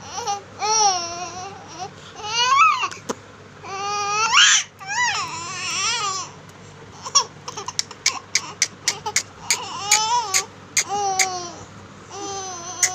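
A baby crying in repeated short, wavering wails. In the second half the cries are broken up by a quick run of sharp clicks.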